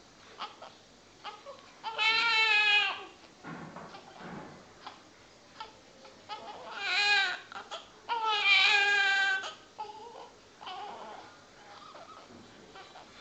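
Newborn baby crying in three loud wails, the first about two seconds in and two more close together from about seven to nine and a half seconds in, each falling slightly in pitch, with quieter fussing whimpers between them.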